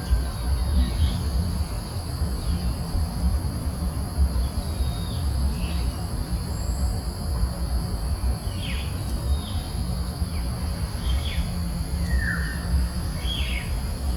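Tropical forest ambience: a steady high-pitched insect drone at two pitches, with scattered short falling bird chirps every second or so, over a low rumble.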